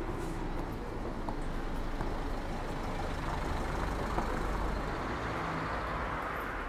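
City street traffic noise, a steady rumble that swells as a vehicle passes near the middle.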